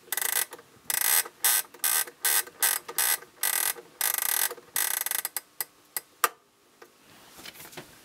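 The alarm-setting knob of a 1973 Universum flip clock radio being turned by hand, its gear mechanism giving a fast, uneven run of ratcheting clicks for about five seconds, then a few single clicks that stop just after six seconds.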